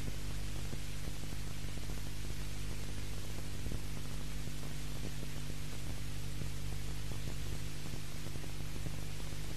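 Steady electrical hum with hiss in the background of an old recording, with no other sound.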